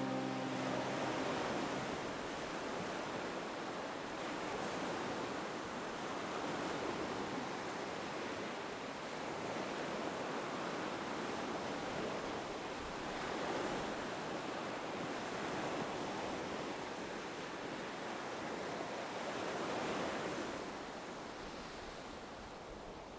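Ocean surf washing in, a steady rush that swells every few seconds and fades away near the end.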